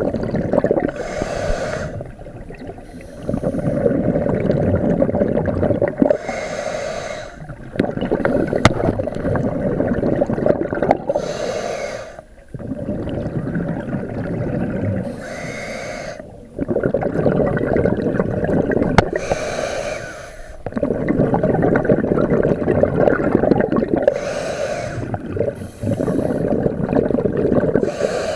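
Scuba diver breathing through a regulator underwater: a short hiss on each inhale, then a longer low rumble of exhaled bubbles, repeating about every four to five seconds.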